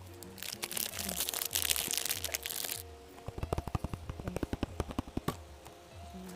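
Plastic snack packaging crinkling loudly for a couple of seconds, then a quick run of sharp crackles as it is handled, over background music with a steady beat.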